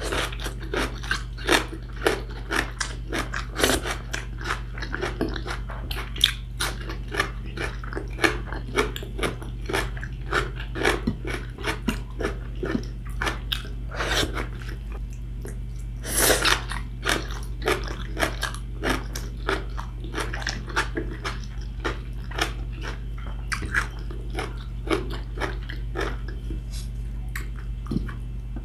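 Close-miked eating sounds: chewing and crunching a salad of sweet potato leaves (talbos ng kamote) eaten by hand, a quick run of small clicks and crunches with a few louder bites. A steady low hum runs underneath.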